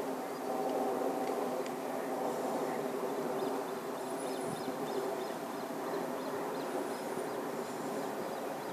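A steady low mechanical hum, like distant engines, with faint high chirps about halfway through.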